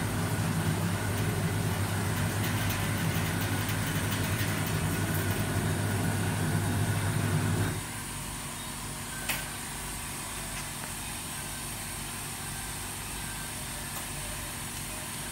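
Polarizer film laminating machine running as its roller carriage travels across an LCD panel: a steady motor hum that stops abruptly about eight seconds in. A single sharp knock comes about a second and a half later, over a fainter steady background hum.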